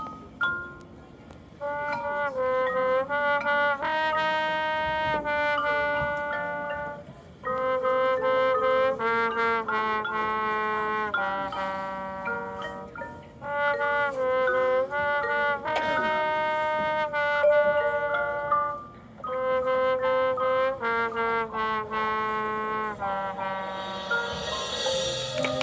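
High school marching band brass section playing sustained chords in four broad phrases, each separated by a brief breath. A rising wash of noise comes in near the end.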